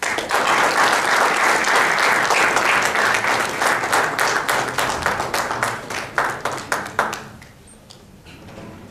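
Audience applauding: dense, steady clapping that thins out into a few last claps and dies away about seven seconds in.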